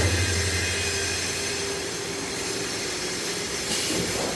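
CNC servo turret punch press running between punching runs: a steady mechanical whir and hiss with no punch strokes. A low hum dies away over the first second or so, and a higher hiss joins near the end.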